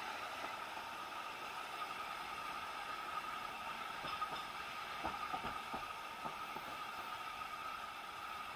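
Steady noise of an Isle of Man Railway steam train, with a few short knocks about five to six seconds in.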